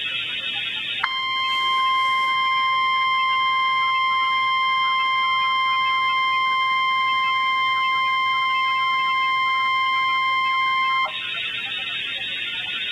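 NOAA Weather Radio's 1050 Hz warning alarm tone: one steady, high, unbroken beep held for about ten seconds. It starts about a second in and cuts off sharply, the alert signal that comes before a weather watch or warning message. Steady radio hiss fills the moments before and after it.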